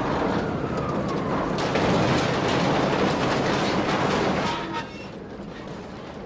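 Heavy machinery rumbling and clanking, with a faint falling whine near the start, then cutting off sharply about five seconds in to leave a quieter rumble.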